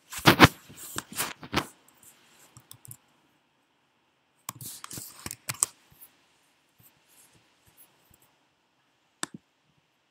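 Computer keyboard being typed on in two short bursts of key clicks, then a single click near the end.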